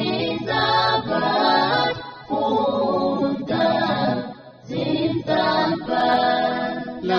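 A group of voices singing or chanting together in unison, without instruments, in held phrases with short breaks between them.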